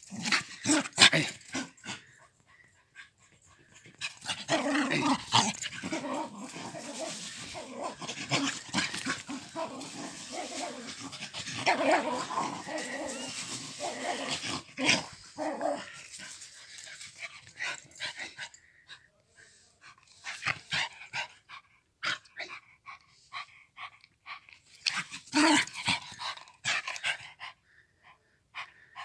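Dog growling in play while tugging at a wooden stick. The growling comes in long rough stretches. Scuffling and sharp clicks run between them.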